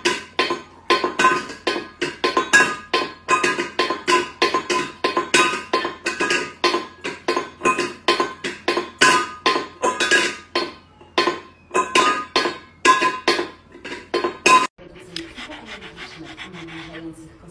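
Stainless steel pet bowl clanging on a tile floor as a cat knocks at it: sharp, ringing metal knocks about three a second, which stop suddenly near the end.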